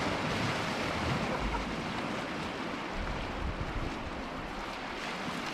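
Steady rush of moving, splashing water, with wind buffeting the microphone in low gusts about a second and a half in and again around three seconds in.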